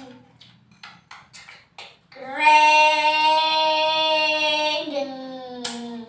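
A child's voice holding a long sung note, then sliding to a lower held note, after a few short clicks.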